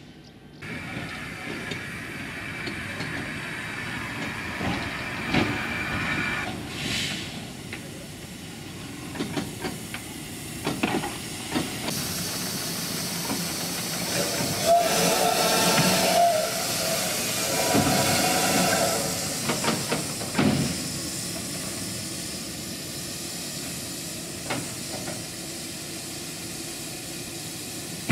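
Narrow-gauge steam tank locomotive hissing steadily as it moves slowly on a turntable, with scattered metallic clanks and knocks. Two brief squealing tones come around the middle.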